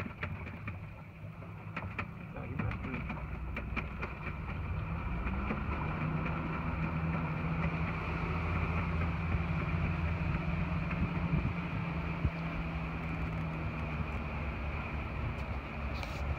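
Motorboat engine running under way; its pitch rises about five seconds in as the throttle opens, then holds steady, over the rush of wind and water past the hull.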